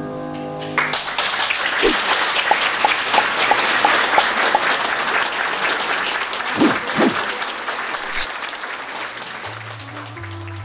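A piano chord rings out, then an audience applauds: dense clapping that slowly fades. Music starts up again just before the end.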